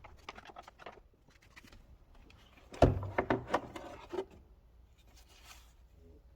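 Clicks and knocks of hard parts being handled, with one loud knock about three seconds in followed by a quick run of clicks, and a brief soft rustle near the end.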